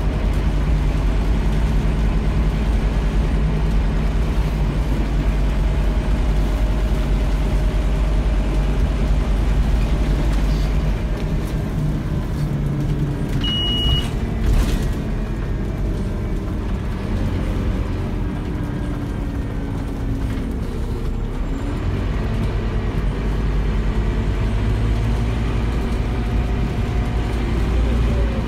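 Scania K230UB Omnilink bus's five-cylinder diesel engine heard from inside the saloon, running hard for about the first twelve seconds, then easing off. Its revs rise again a little after twenty seconds in. A short high beep sounds just before halfway.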